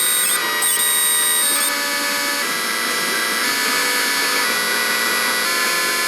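Loud, harsh electronic noise with high, steady whistling tones that jump abruptly to new pitches every second or so.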